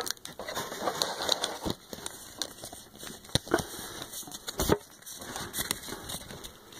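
Crinkling and rustling of a foil trading-card booster pack and cards being handled, with scattered small clicks and a few sharper knocks.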